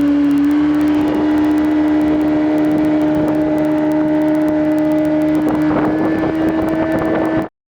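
Evinrude V4 90 two-stroke outboard motor running at a steady speed with an even tone, its fuel pump diaphragm newly replaced. The sound cuts off abruptly near the end.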